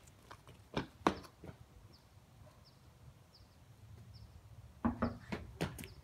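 Sneaker footsteps scuffing and slapping on concrete as someone runs up to a front door and onto the steps: a quick run of sharp steps in the first second and a half, a quieter stretch, then more steps near the end. Faint short high chirps repeat in the quiet middle.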